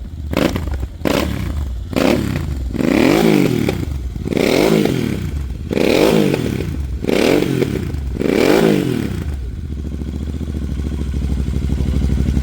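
Royal Enfield Interceptor 650's parallel-twin engine running through AEW 103 exhausts with the baffles removed, revved in quick throttle blips: a few short sharp ones with crackling at first, then five longer revs that each rise and fall, before it drops back to a steady idle near the end.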